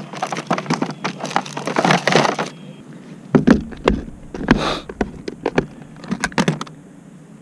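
A rapid, irregular run of knocks and cracks for about two and a half seconds, then a few separate heavier knocks spaced roughly half a second apart, stopping shortly before the end.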